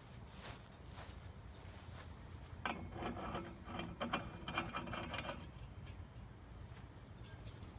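Hard parts scraping, rubbing and clinking together as they are handled, busiest for about two and a half seconds a few seconds in, with scattered clicks before and after.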